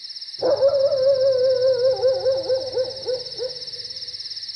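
Crickets chirping steadily, with a soft wavering melody note in the background music starting about half a second in, its pitch wobbling and dipping before it fades out near the end.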